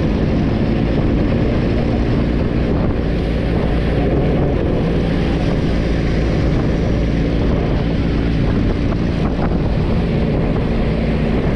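Steady engine drone of a vehicle running at an even speed, with wind rushing over the microphone.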